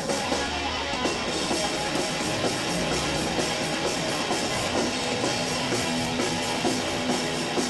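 Background rock music with electric guitar and a drum kit.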